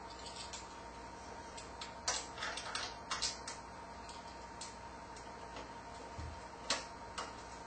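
Scattered sharp clicks and taps of metal and plastic computer parts being handled inside a PC case as a graphics card is lined up and seated in its expansion slot, about eight in all, irregularly spaced.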